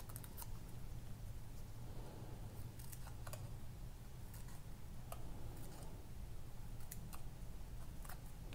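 Small scissors snipping thin paper: a string of short, irregularly spaced snips as little triangles are cut into a paper strip. A faint steady low hum sits underneath.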